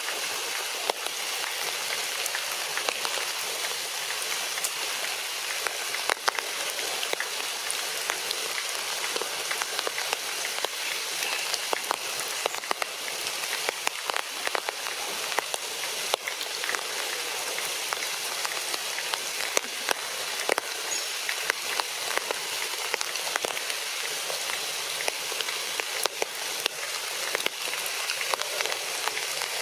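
Steady patter of rain on forest leaves: an even hiss with many small, scattered ticks of drops.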